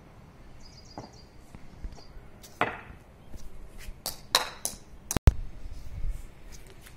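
A string of sharp knocks: a tennis ball bouncing on a concrete rooftop and being hit with a cricket bat. The loudest, sharpest crack comes a little over five seconds in.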